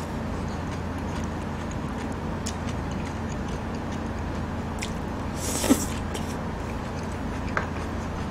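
Close-miked eating sounds: chewing rice, with small clicks of chopsticks against a stainless steel rice bowl, and one louder short mouth sound about five and a half seconds in. A steady low electrical hum underlies it all.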